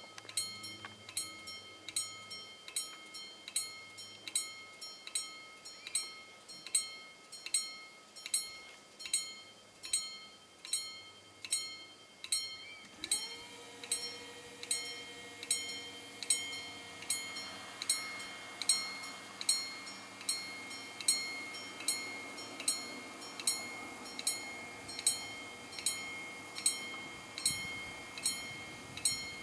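Level crossing warning bell ringing in steady, evenly spaced strokes, about one and a half a second, signalling a train approaching. About halfway a steady hum joins in underneath.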